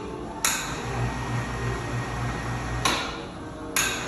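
Small electric wire-rope hoist lowering a light basket in short runs: sharp clicks as the motor and its brake switch on and off, three times, with low motor hum between.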